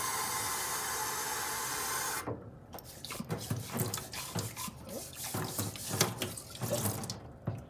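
Tap water running into a utility sink for about two seconds, then shut off abruptly. It is followed by irregular scraping, clicks and knocks as a twisted-wire brush scrubs inside a plastic water-filter housing.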